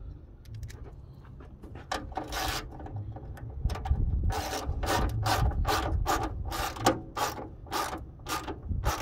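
Hand ratchet wrench clicking in repeated short strokes, about two a second from about two seconds in, as a bolt on the hood strut mount bracket at the fender is tightened.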